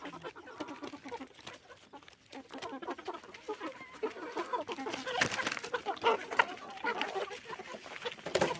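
A flock of young Fayoumi chickens, cockerels and pullets, clucking and calling over one another. The calling gets busier and louder about halfway through.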